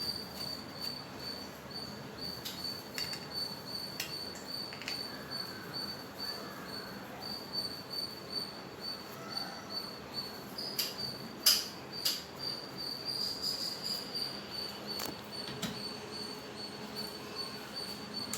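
A steady high-pitched insect trill, with scattered clicks and knocks from handling and wiping refrigerator parts during cleaning; the loudest knock comes about eleven seconds in.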